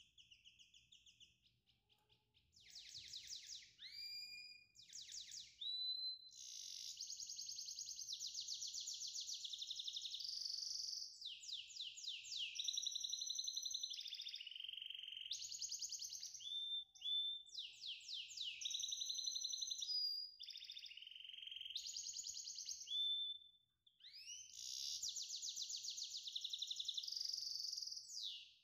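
A songbird singing: high-pitched phrases of rapid trills, chirps and gliding whistles with short pauses between them. It is sparse for the first couple of seconds and fuller from about six seconds in.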